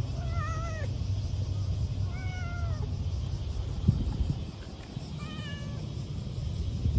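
A cat meowing three times, short meows a couple of seconds apart, over a steady low rumble.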